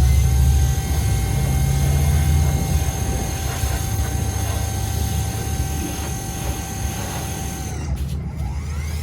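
Pressure washer running and spraying: a steady motor drone with a high whine over it. The whine cuts out for about a second near the end, then comes back.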